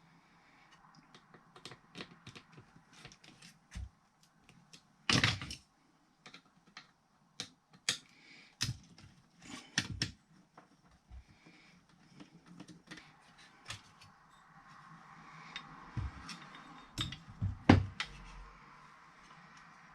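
Irregular clicks, taps and light knocks of hand tools and the casing parts of a car radio unit being handled and taken apart, with a louder brief rattle about five seconds in and a sharp knock near the end.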